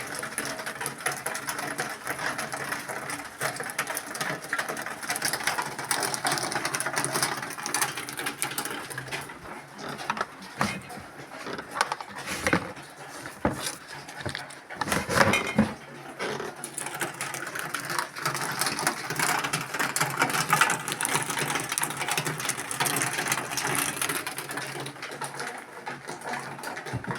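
Dense, rapid mechanical clicking and rattling that goes on without a break, louder and more uneven about halfway through.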